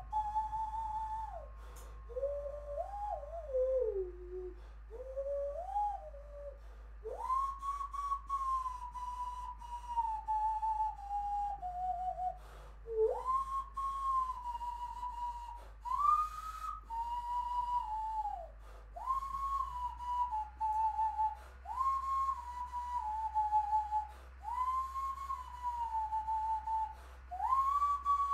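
Hand whistle: cupped, clasped hands blown into like an ocarina, giving a single pure tone. It plays a slow, wandering tune of held notes that slide up and down. The notes dip lower and waver in the first five seconds or so, then sit mostly higher in short phrases with brief breaks between them.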